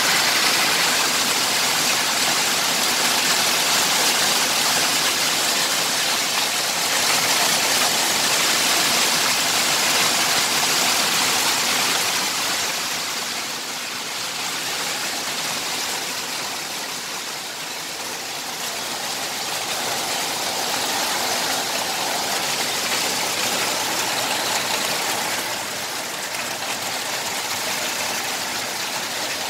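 Heavy rain pouring down, a steady hiss that eases a little about halfway through and then picks up again.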